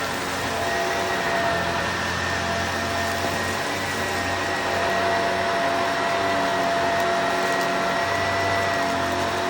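Vacuum cleaner running steadily, a constant rushing of air with a high whine held at one pitch.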